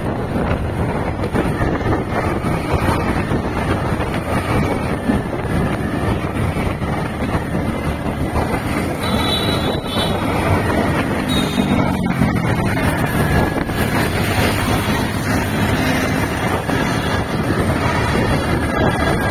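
Steady traffic and road noise while moving along a city road, with wind rushing over the microphone. A box truck's engine runs close ahead, and a low engine note stands out about ten to thirteen seconds in.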